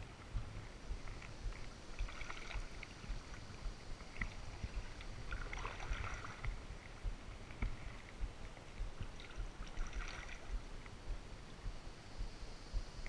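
Kayak paddle dipping and splashing in calm water, three slow strokes about four seconds apart, over a low rumble.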